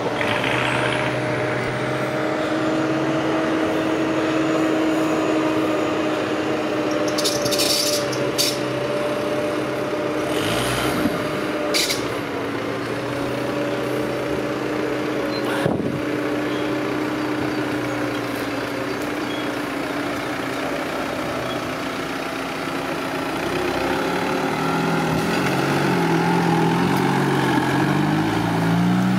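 Off-road Suzuki Samurai's engine running at low revs as it crawls through a trial section, with a steady whine over it; the revs rise and fall in steps near the end. A few short sharp clicks or knocks come through the middle.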